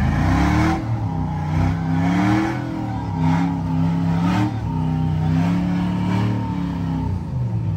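Jeep Cherokee XJ rock crawler's engine revving hard in repeated pulses, its pitch rising and falling about five times, as it claws up a steep rock ledge under heavy load.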